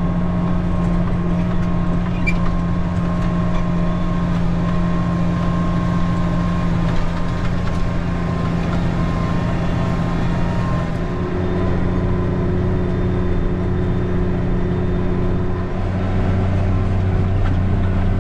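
Farm tractor engine running steadily under load, with a steady hum. Its note changes about eleven seconds in, and a deeper hum grows from about sixteen seconds.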